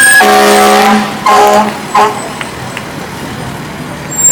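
Fire truck air horn: one blast of about a second, then two short blasts, just as a rising siren wail cuts off.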